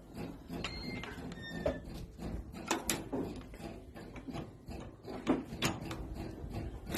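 Irregular knocks and clatter with a few sharp clicks, over a low rumble, with faint short squeaks about a second in.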